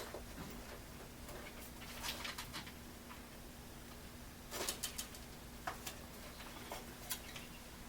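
Scattered light clicks and taps, a few at a time with gaps between them, over a faint steady hum.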